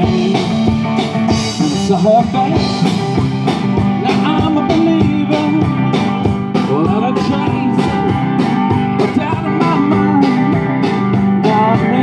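Live rock band playing: amplified electric guitar over a steady drum-kit beat.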